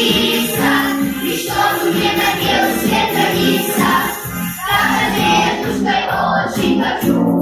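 A song sung by a group of voices, likely children, over an instrumental backing track.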